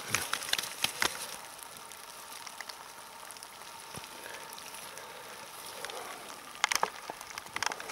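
Dry grass and dead leaves crackling and rustling as a hand rummages through them, in bursts near the start and again near the end, over a steady hiss.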